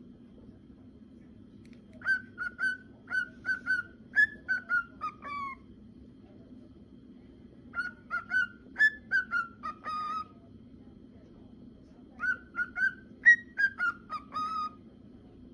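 Male cockatiel whistling its song: three phrases of short, clear whistled notes, each phrase stepping down in pitch toward its end.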